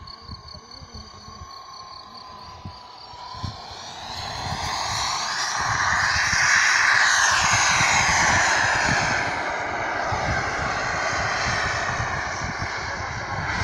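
Radio-controlled model jet's turbine whine building as the jet flies in, loudest about halfway through, then dropping in pitch as it passes by, with wind buffeting the microphone.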